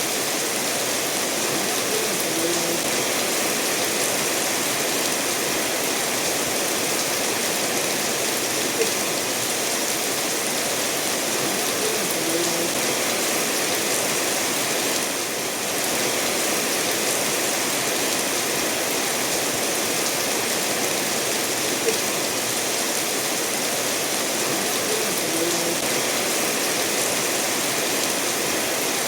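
Steady rain falling, mixed with a stream running over stones.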